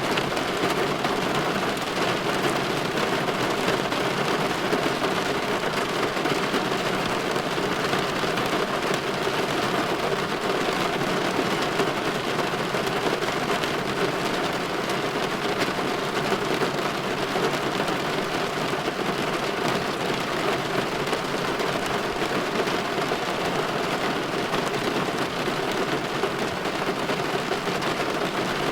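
Steady light rain falling against a window pane: an even hiss of rain sprinkled with fine drop ticks, with no change in level throughout.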